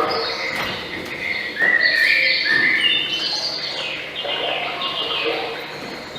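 Birds chirping and singing: a run of short, high calls that step up and down in pitch.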